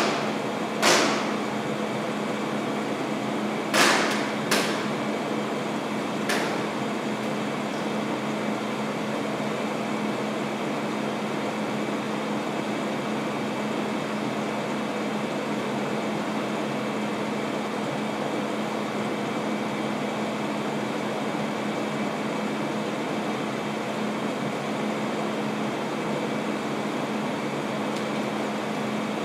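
Steady hiss and hum of air conditioning. Four short rasps in the first six seconds, from pink adhesive tape being pulled off its roll.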